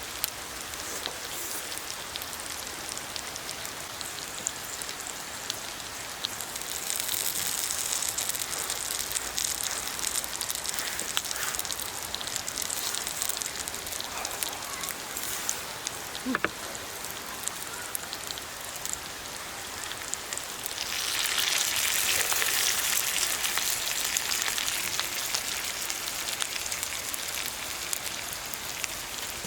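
Steady rain with many fine individual drops, coming down harder for a few seconds twice, about a quarter of the way in and again about two-thirds in.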